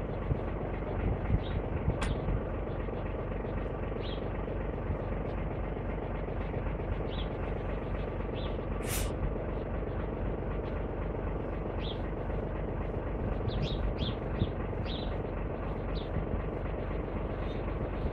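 Wheel loader's diesel engine idling steadily.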